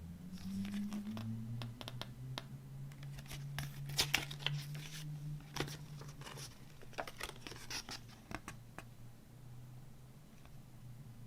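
Hands handling a CD package and its contents: paper and plastic rustling and crinkling with scattered sharp clicks and taps, busiest in the middle, over a steady low hum.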